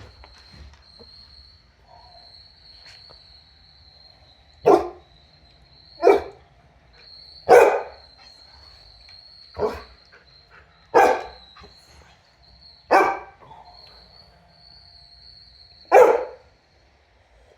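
A dog barks seven times in single sharp barks, one every one to three seconds, at a running robot vacuum cleaner. The vacuum's faint, steady high whine sounds between the barks.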